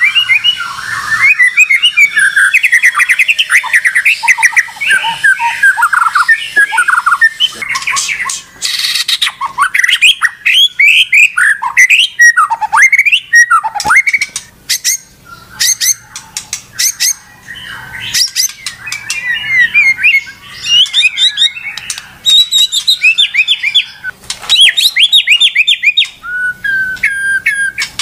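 White-rumped shama (murai batu) singing loudly: a fast, varied run of chirps, whistles and trills broken by sharp clicking notes, going on almost without pause.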